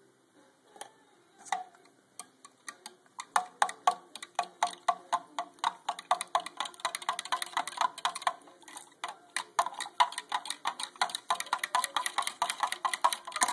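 A spoon stirring powdered supplement into water in a clear cup, clinking against the inside of the cup. A couple of single taps come first, then rapid, even clicks, about four or five a second, from about three seconds in.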